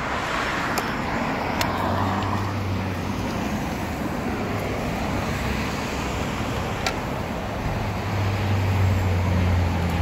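Street traffic: cars driving past, with a low engine hum that swells about a second in and again near the end.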